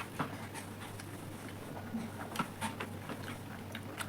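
Quiet eating sounds: scattered small clicks and mouth smacks of people chewing momos, over a steady low hum.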